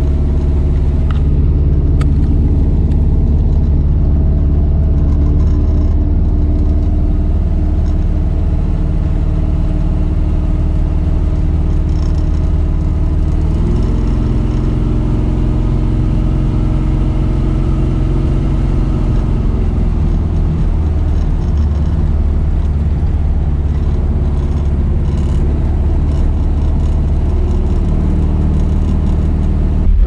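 Cammed small-block Chevy V8 running through long-tube headers and a loud turn-down exhaust, heard from inside the truck's cab while cruising. The engine note is steady, changes about halfway through and settles back a few seconds later.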